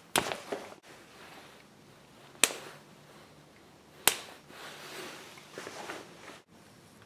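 Three sharp clicks about two seconds apart, each followed by brief rustling of handling, as the Schrade Model 8 tactical pen is handled.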